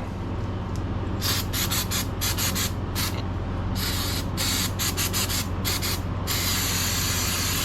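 Gasoline spraying from a bottle into a motorcycle engine's magneto-side case to flush out dirt: a run of short hissing squirts, then a steady spray from about six seconds in.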